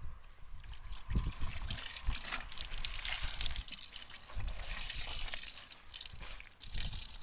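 Wet laundry being wrung out by hand, water trickling and splashing back into the washing tub, with a few soft knocks.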